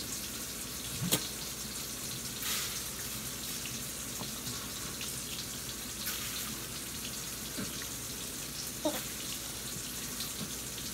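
Steady even hiss, with a few faint short clicks over it.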